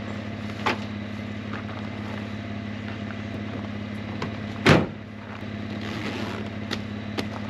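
The tailgate of a Chevrolet Colorado ZR2 pickup is swung up and slammed shut about two-thirds of the way through, the loudest sound, over the steady low hum of an idling engine. A couple of light clicks follow near the end as the camper shell's rear window is closed.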